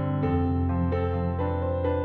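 Background music on a keyboard instrument: a melody of notes changing every quarter to half second over a held low bass.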